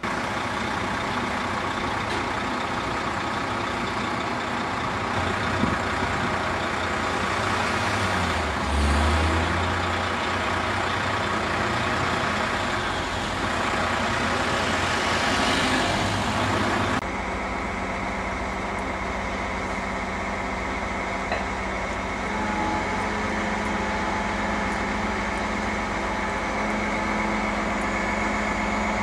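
Truck-mounted crane's engine running steadily while it lifts a load. The sound changes suddenly about two-thirds through to a duller, steadier hum.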